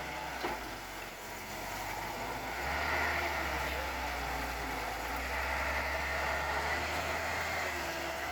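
JCB excavator's diesel engine running steadily, getting louder about two and a half seconds in as it takes on more load.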